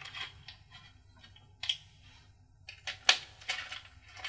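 Small clicks, taps and scrapes of a screwdriver and screws working against the plastic housing of a weather station's rain gauge as the screws are driven in. There is a sharp click a little before two seconds in and a louder one about three seconds in.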